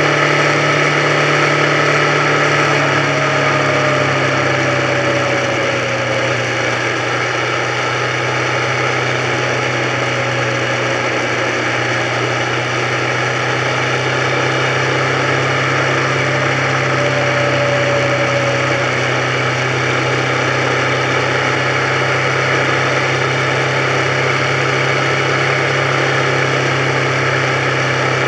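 Motorcycle engine running at a steady cruise, heard from the bike itself along with wind and road noise. The engine note eases down slightly about three seconds in, then holds steady.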